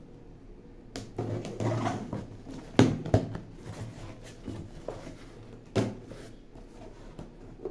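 Cardboard shipping box being handled and unpacked: kraft packing paper rustling, and the box and its flaps knocking sharply a few times, loudest about three seconds in.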